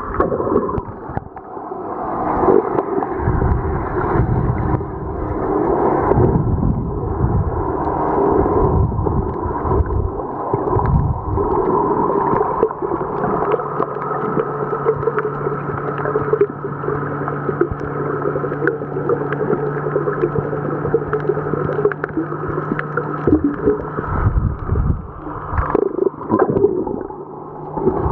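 Muffled underwater sound picked up by a submerged camera: water sloshing and gurgling with uneven surges. About halfway through, a steady drone of several fixed pitches joins in, typical of a motor heard through the water.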